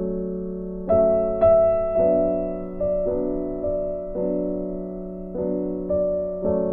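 Background piano music: slow, gentle notes and chords, each ringing and fading before the next.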